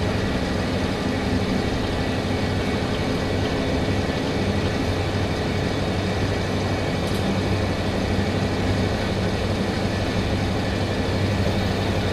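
The DMH17C diesel engine of the KiHa 005 railcar running steadily, heard from on board the car, with a continuous low engine drone over an even running noise.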